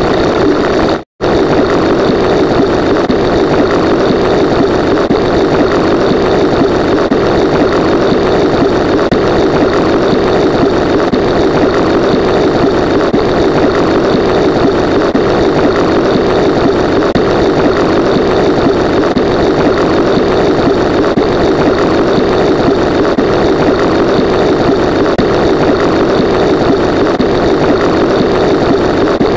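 A loud, steady engine-like drone that cuts out for an instant about a second in, then runs on unchanged.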